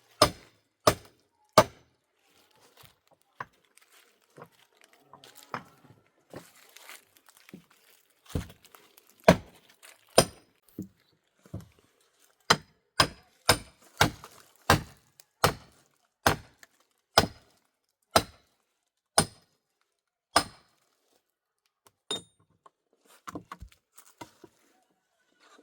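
Repeated chopping strikes on wood, a few at first and then a steady run of about one blow a second, with faint crackling and snapping of twigs in the pause between them.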